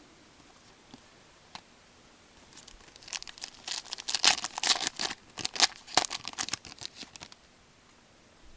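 Trading-card pack wrapper being torn open, with a rapid run of crinkling and tearing crackles from about two and a half seconds in to about seven seconds in.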